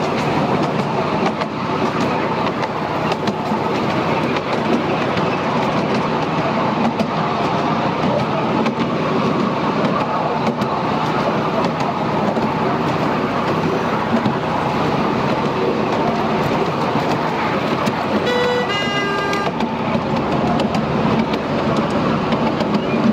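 Miniature railway train running steadily along the track, heard from one of its riding cars: the steady sound of its wheels on the rails. About eighteen seconds in, the locomotive sounds a short toot in two brief notes.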